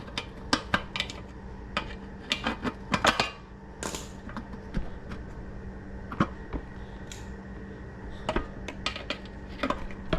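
Small metal hardware and tools clinking and clattering as they are rummaged through and handled, in a run of irregular sharp clicks.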